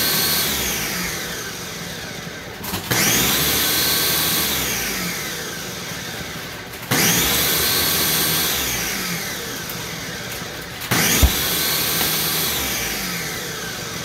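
Countertop blender running on a full jar of thick green smoothie, pulsing: the motor surges in sharply about every four seconds, its whine falling in pitch and loudness after each surge before it kicks in again.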